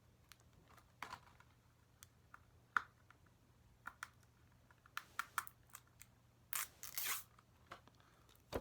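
Hands working at a plastic Blu-ray case and its security seal: scattered plastic clicks and crinkles, with a short tearing rustle about six and a half seconds in.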